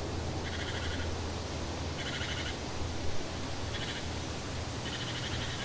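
A small bird singing a short, dry, high trill four times, about a second and a half apart, over a steady low rumble.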